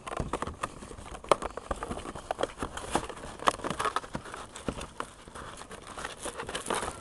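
Plastic packaging crinkling and rustling, with many small clicks and taps, as a gauge's retail package is handled and its contents taken out.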